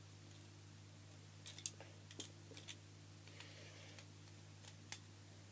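Small plastic toys being handled: scattered light clicks and taps, a cluster about one and a half seconds in and two more near the end, over a steady low hum.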